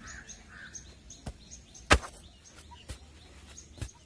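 Birds chirping in quick repeated calls that stop about half a second in, then four sharp knocks about a second apart, the loudest about two seconds in.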